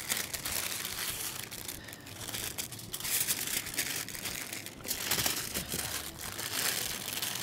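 Paper and aluminium foil crinkling and rustling, handled without pause, as they are folded around a meatloaf.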